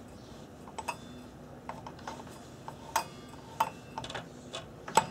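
Scattered light metallic clicks and ticks, a few with a short ring, as a 7-1/4 inch 40-tooth miter saw blade is turned by hand while the spindle lock pin is pressed in, until the pin catches and locks the blade.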